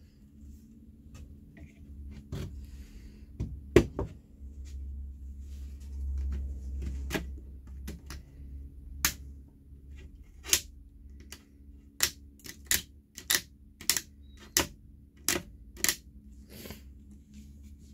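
Utility knife scraping and chipping old dried glue off the wooden edges of a glass cabinet door: a series of sharp, irregular clicks, with a low rumble in the first half.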